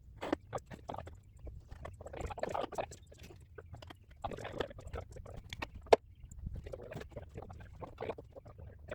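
Irregular clicks and knocks with short stretches of rustling, a sharp knock about six seconds in.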